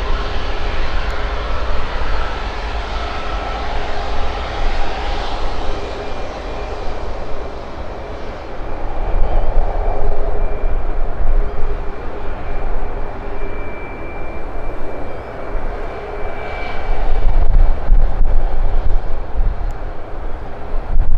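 Jet airliner's engines running close by: a loud, dense rumble with steady whining tones on top, swelling louder about nine seconds in and again near the end.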